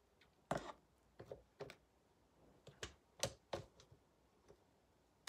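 A silicone spatula scraping thick cake batter off a stopped stand mixer's beater: a string of faint, irregular light taps and scrapes.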